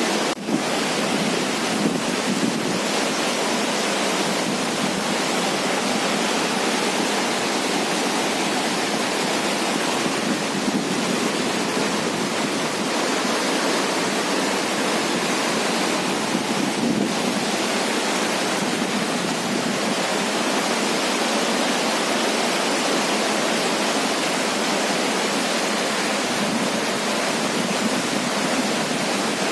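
Swollen river rushing in white-water rapids over a submerged path and past stone steps: a steady, loud rush of water.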